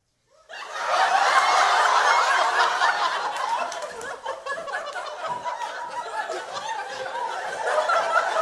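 Theatre audience laughing. The laughter bursts in about half a second in, is loudest over the next couple of seconds, then eases off somewhat.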